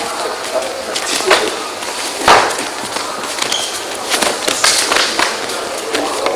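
Sharp smacks of punches and kicks landing and feet striking the mat during a sparring exchange, with voices of onlookers in the hall behind. The loudest hit comes a little over two seconds in, and a quicker run of hits follows around four to five seconds in.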